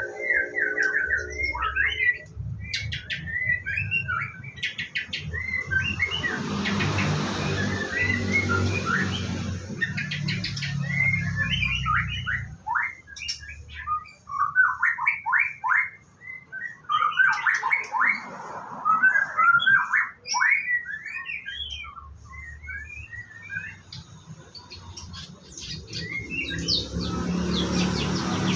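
White-rumped shamas chirping and singing in quick short phrases, many overlapping. A low rumbling hiss runs under the birds for the first dozen seconds and again near the end.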